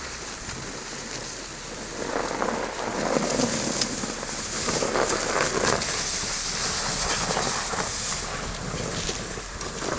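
Honda HR-V driving over a snow-covered road: a rushing noise of tyres on snow with irregular crackling, getting louder about two seconds in.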